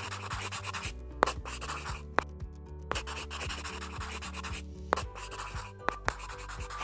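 A black felt-tip marker scratching across paper in a few drawn strokes, with background music underneath.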